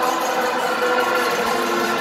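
Live rock concert heard from the audience: the band holds steady sustained chords, with arena crowd noise underneath.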